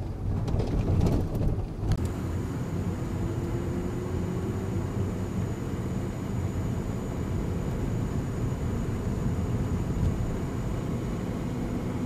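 Low, steady rumble of a car's engine and tyres on the road, heard from inside the cabin while driving.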